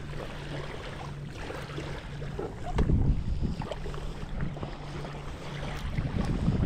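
Wind buffeting the microphone, gusting harder about three seconds in and again near the end, over a steady low hum.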